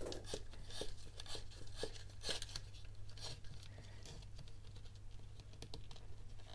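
Leather lace being pulled through holes in a dried gourd's rim, with fingers handling the hard gourd shell: faint, irregular scratches and rustles, busier in the first few seconds.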